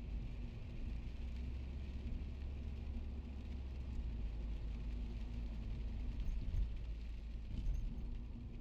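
Steady city street ambience at night: a low rumble of distant traffic with a faint hiss.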